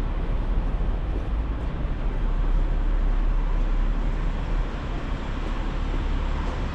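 Steady city road traffic noise from a wide multi-lane road, a constant wash with a deep low rumble.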